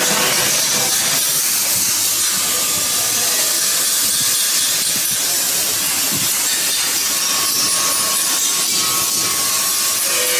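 Steady, hissing machine noise of a metalworking shop where cast brass fittings are turned and finished on a metal lathe.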